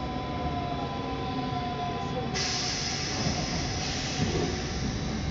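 Interior of an electric commuter train at a station: a steady running sound with a faint whine slowly falling in pitch as the train slows. About two seconds in, a sudden loud hiss of air sets in, then eases off.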